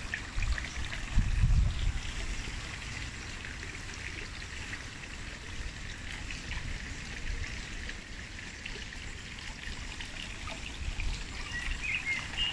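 Water trickling steadily from a tiered stone garden fountain, with wind buffeting the microphone in gusts about a second in.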